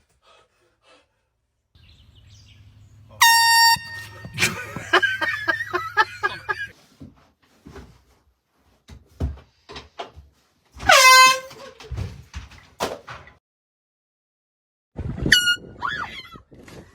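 An air horn sounded in a few short loud blasts, the loudest about eleven seconds in, with bursts of laughter between them.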